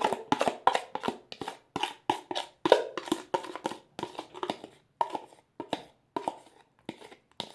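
Spoon knocking repeatedly against a bowl as soap slime is stirred, about four sharp clicks a second, each with a brief ring.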